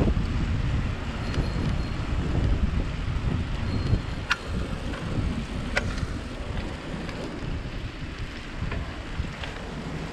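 Wind buffeting the microphone as a loud, uneven low rumble, with two sharp clicks, one a little over 4 seconds in and one near 6 seconds.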